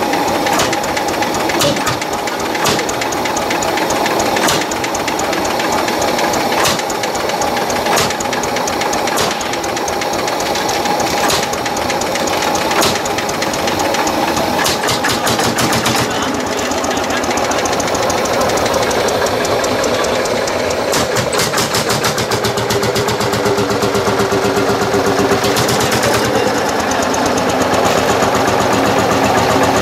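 Tractor engine running with a steady knocking beat, its strokes coming faster and a little louder in the second half.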